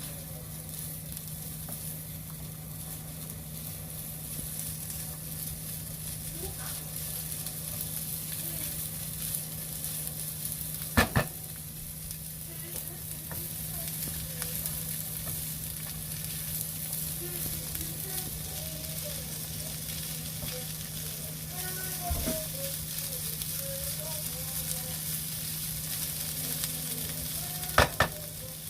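Julienned potato and ham sizzling in a frying pan as they are stir-fried, a steady hiss over a low steady hum. There are sharp knocks about eleven seconds in and twice near the end.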